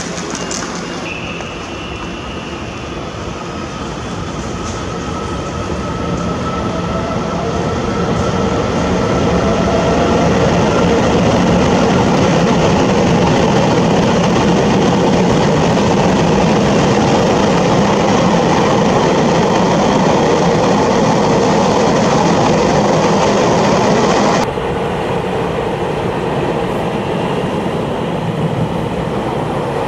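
Puyuma tilting electric multiple unit pulling away: its traction motors give a whine that rises in pitch as it gathers speed, over a growing rush of wheels on rail. About two-thirds of the way through the sound drops suddenly to a quieter, steady rush of the painted cars running past.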